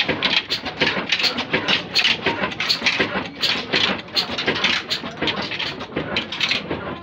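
Old stationary engine running a belt-driven line shaft and pulleys that power a mustard-oil press, with a fast, even knocking of about four beats a second.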